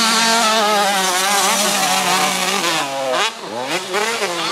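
Motocross bike engine held at high revs, then dropping off about three seconds in and revving back up in short rises and falls.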